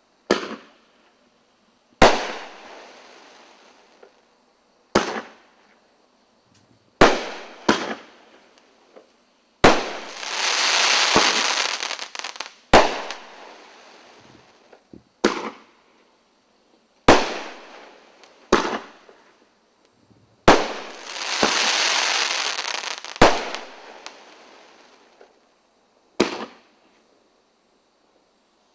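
A 500-gram BM-5003 Sky Bomb firework cake firing shot after shot: a sharp bang every two to three seconds, each trailing off, sometimes two in quick succession. Twice, about a third and three quarters of the way through, a dense hiss swells and lasts about two seconds.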